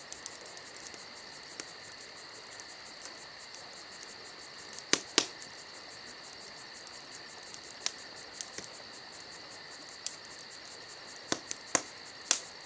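A steady chorus of night-singing insects, crickets, with a high even trill. A few sharp clicks or taps stand out above it, two about five seconds in and several more near the end.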